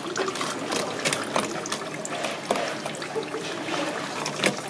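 Water running and trickling, with irregular sharp clicks and knocks throughout.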